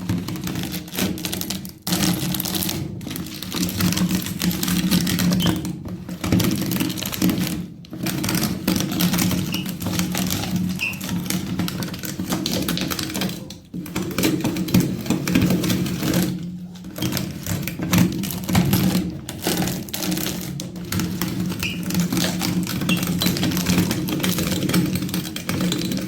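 Electric meat grinder running with a steady motor hum while walnuts crack and crunch through it in a dense, clattering crackle, broken by a few brief dips.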